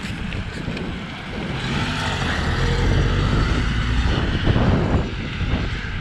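Wind rumbling on the microphone over road noise. A motor vehicle passes, its engine hum growing louder through the middle and then easing off.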